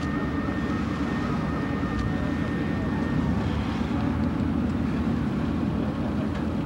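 Steady aircraft engine noise: a low, even rumble with a thin high whine that fades out about three seconds in.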